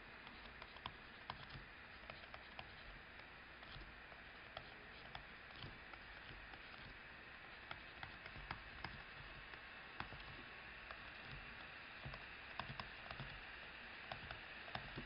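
Faint, irregular taps and clicks of a stylus writing on a tablet screen, over a steady low hiss.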